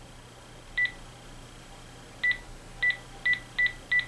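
Key beeps from a Panasonic KX-TG6521 cordless phone as its buttons are pressed to work through the settings: six short, high beeps, one about a second in, then five in quick succession over the last two seconds.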